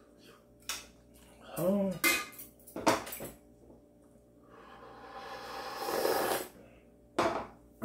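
A metal ladle clicks against an earthenware pot and a ceramic bowl as noodle-soup broth is served. Then comes a long slurp of hot broth drunk straight from the bowl, growing louder for about two seconds before it stops. A last click follows near the end.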